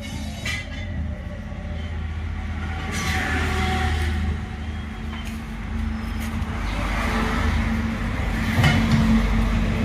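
A motor vehicle's engine running with a steady low hum, swelling louder twice, about three seconds in and again, loudest, near the end.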